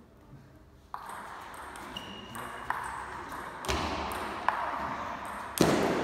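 Table tennis ball knocking back and forth on paddles and table during a rally, a sharp click about every second, with a short echo after each.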